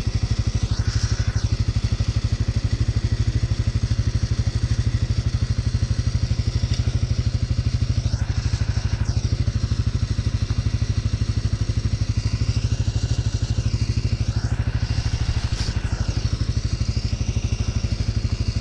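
ATV engine idling steadily, with an even low pulsing that does not rise or fall in speed.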